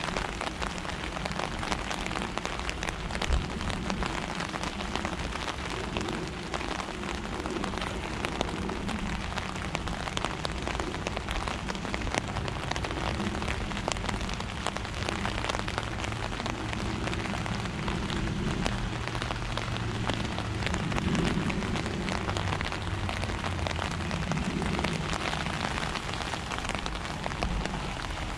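Steady patter of rain falling on a surface.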